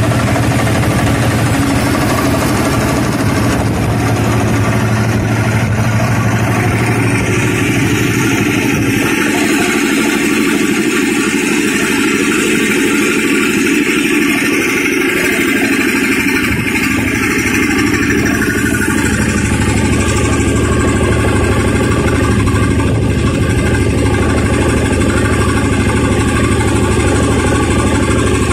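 ELGI 20 hp base-mounted reciprocating air compressor running steadily. Its deep hum drops away for several seconds midway, then returns.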